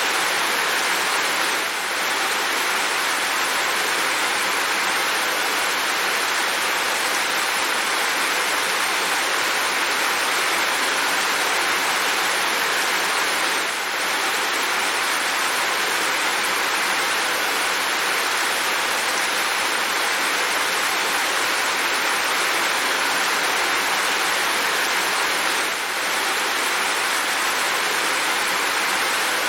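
Steady rain falling, an even continuous hiss, with a brief slight dip in loudness about every twelve seconds.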